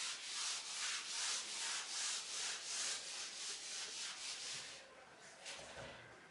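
Whiteboard eraser wiping marker writing off a whiteboard in quick back-and-forth strokes, about three a second. The wiping stops about five seconds in.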